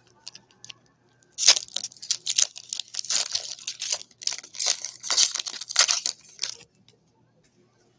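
A trading-card pack's wrapper being torn open and crinkled by hand. A run of dense crackling tears starts about a second and a half in and lasts about five seconds.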